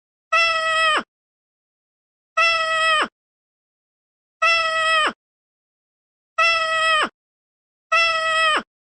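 A cat's meow played as a sound effect five times, the identical short meow repeating about every two seconds. Each meow is held at one pitch and then drops at the end.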